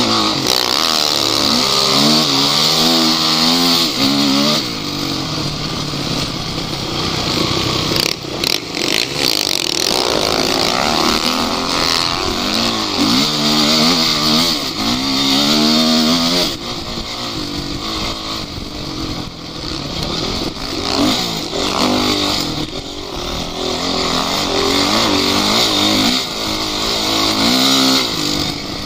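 Off-road vehicle engine revving up and falling back over and over, the pitch rising and dropping as it is worked hard, with a steady rushing hiss over it.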